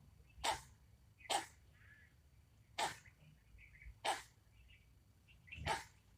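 An animal expelling five short, sharp, noisy blasts of breath at irregular intervals, with faint high-pitched chirps between them.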